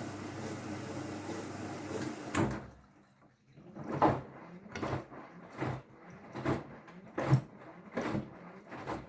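Hoover All In One 59 washing machine running: a steady hiss and hum stops with a knock. After a short pause the drum starts turning, with a regular clunk and swish about every 0.8 seconds.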